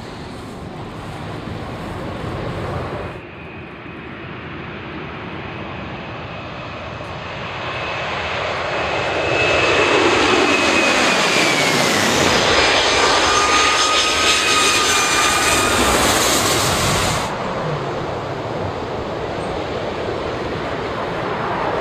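Jet airliner engines in three separate passes. A Boeing 737 touches down first. Then a twin-engine widebody jet climbs low overhead at takeoff power; it is the loudest part, with a whine that falls in pitch as it passes, and it cuts off suddenly. A third jetliner touches down last, more quietly.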